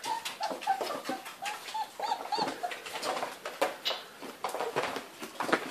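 Great Dane puppies, about four weeks old, giving short high whimpers and squeaks while jostling to nurse from their mother. Many quick clicks and scrapes run through it, from their claws on the parquet floor.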